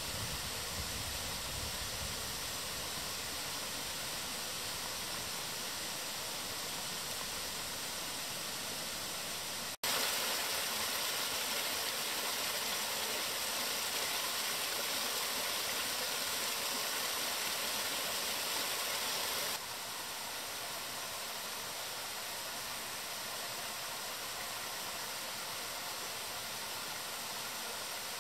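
Small forest stream running and splashing over rocks: a steady rushing hiss. It breaks off for an instant about a third of the way in, comes back louder and brighter, and drops back to a softer level about two-thirds of the way through.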